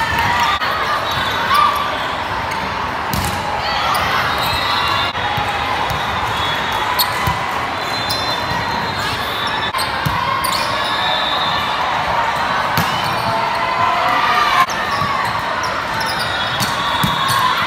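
Indoor volleyball play on a hardwood court: scattered sharp smacks of the ball being hit and landing, over a constant echoing din of players' and spectators' voices in a big gym.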